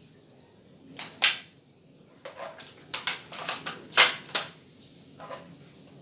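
A run of sharp mechanical clicks and clacks from the WELL MB4410 bolt-action airsoft spring sniper rifle being handled: two about a second in, a quick string of about eight between two and four and a half seconds in, and two more near the end. The loudest clacks come about a second in and about four seconds in.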